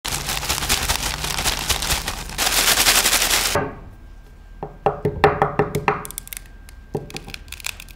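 A flip phone shaken inside a plastic zip bag full of dirt and grit: a dense rattling and rustling that stops suddenly about three and a half seconds in. Then a series of sharp clicks and short gritty crunches as dust-filled flip phones, a Motorola Razr and a Samsung Galaxy Z Flip 5, are folded open and shut.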